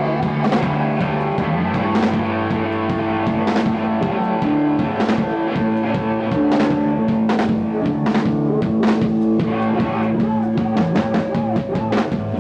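Rock music with a drum kit keeping a steady beat under guitar; near the end the drums break into a run of quick hits.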